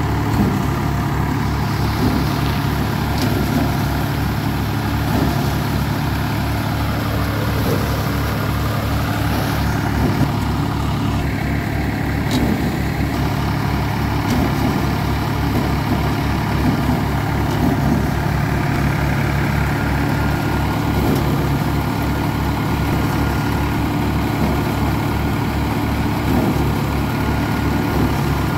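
Tractor's diesel engine running steadily with an even low pulsing beat, driving a Dasmesh paddy thresher whose drum hums along with it.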